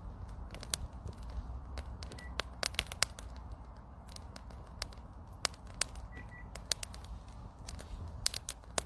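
Campfire wood crackling, with sharp irregular pops over a low steady rumble.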